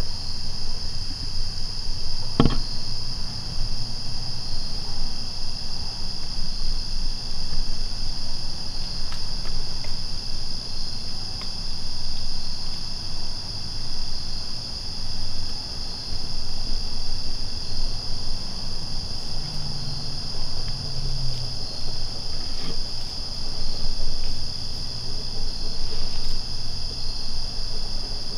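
Steady night chorus of crickets singing, a continuous high-pitched trill. A single sharp click comes about two and a half seconds in.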